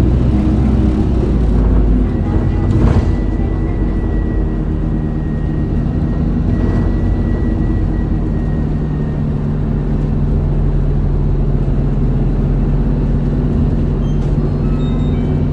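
Interior running sound of an Isuzu Erga (2DG-LV290N2) city bus underway: its four-cylinder turbodiesel drones steadily, the deepest rumble easing about two seconds in, with a faint thin whine for several seconds. A few short high tones sound near the end.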